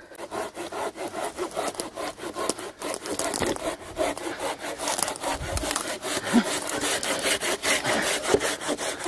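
A hand saw cutting through firewood with steady back-and-forth strokes, each stroke a rasp of teeth in wood.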